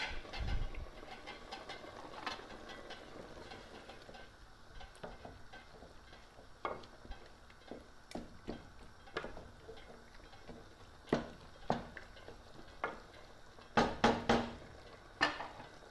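Wooden spoon stirring a boiling onion-and-tomato curry base in an aluminium pot, knocking against the pot's side now and then with sharp knocks that come more often near the end.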